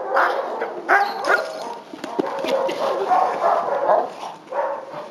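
German shepherd police dog barking several times in short, separate barks during bite training.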